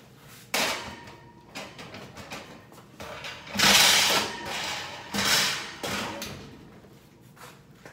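A wall oven being closed: its metal racks sliding and the door swinging shut, heard as a few scraping clatters, the loudest about four seconds in.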